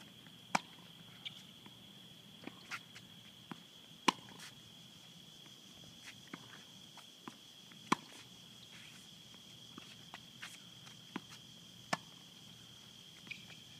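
Tennis ball struck by rackets in a rally on a hard court: sharp pops every few seconds, the loudest about half a second in, about four seconds in, near eight seconds and near twelve seconds, with fainter ball bounces and shoe scuffs between. A steady high-pitched hum runs underneath.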